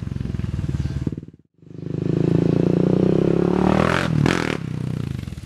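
Honda TRX400EX ATV's single-cylinder four-stroke engine, fitted with a Curtis Sparks full exhaust, running hard past the microphone. The sound cuts off abruptly about a second and a half in, then a second pass builds, is loudest around four seconds in, and drops in pitch as it goes by.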